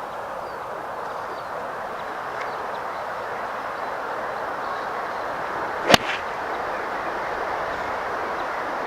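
A golf club strikes the ball once, a single sharp crack about six seconds in, over a steady background rush.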